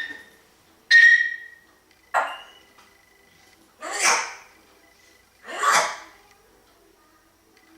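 African grey parrot mimicking a human sneeze four times, a second or two apart. The first two are sharp with a whistly edge, and the later ones are longer and breathier.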